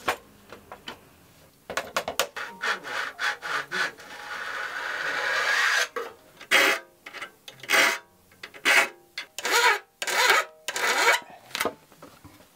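A hand file scraping across the teeth of an Inosuke ryoba saw clamped in a wooden saw vise. Quick short strokes come first, then a longer scrape that grows louder, then louder separate strokes about one a second. The saw is being resharpened because it had been cutting curved.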